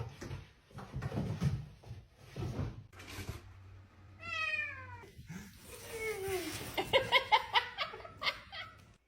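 A cat meowing: one falling meow about four seconds in, a second shortly after, then a quick run of short calls near the end.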